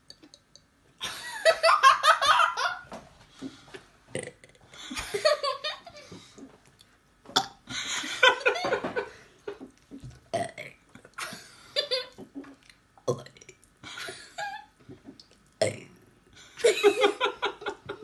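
A five-year-old child burping on purpose, over and over: a long, loud burp about a second in, then a string of shorter burps every second or two, with giggling between them.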